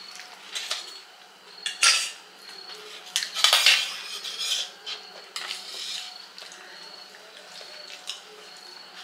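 Steel spoons clinking and scraping against steel plates during a meal, with louder scrapes about two seconds in and again around three and a half seconds in.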